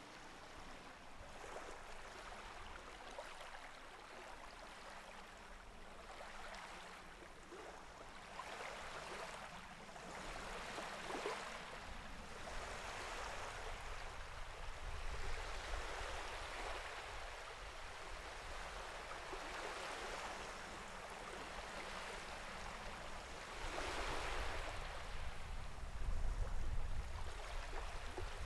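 Sea waves washing: a steady rush of water that swells every few seconds, with a low rumble growing louder near the end.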